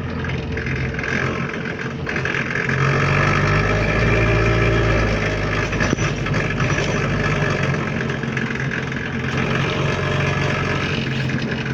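Bus engine heard from inside the passenger cabin, with a rattly sound; it pulls harder and grows louder from about three to five seconds in, then settles to a steady run.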